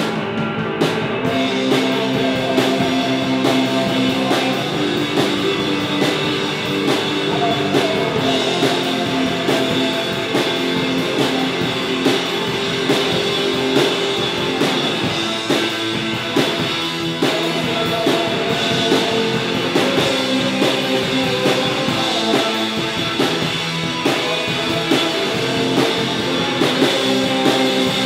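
Live punk rock band playing loud through amplifiers: distorted electric guitars over a drum kit.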